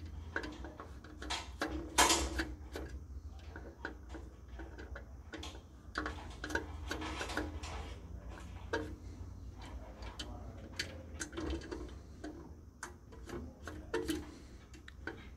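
Irregular small clicks and scrapes of an insulated screwdriver working the terminal screws of a current transformer, with the light rattle of wire ends being handled at the terminals.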